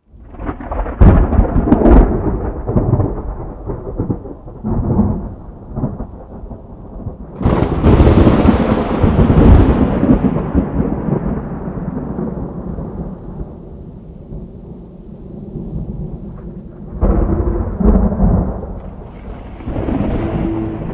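Thunder: several sharp claps, the biggest about seven seconds in, each followed by a deep rolling rumble that dies away over several seconds.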